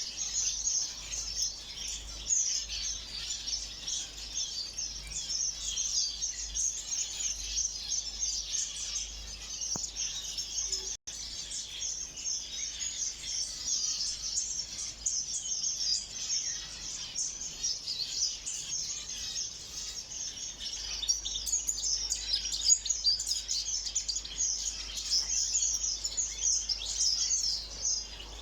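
A dense, continuous chorus of many small ornamental cage birds chirping and chattering together in an aviary. The chorus breaks off for an instant about eleven seconds in.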